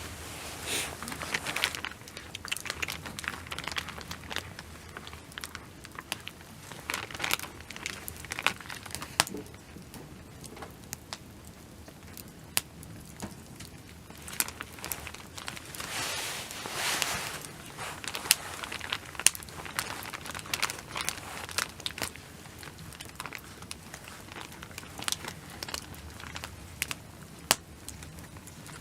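Crinkling and rustling of something being handled, in bursts of a second or two, with many scattered sharp clicks and light knocks.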